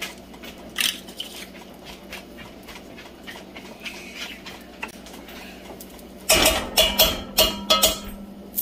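A dog barks in quick succession, about six or seven barks over two seconds near the end, over a faint steady hum. Before that come a few light clinks of a metal spoon against a skillet.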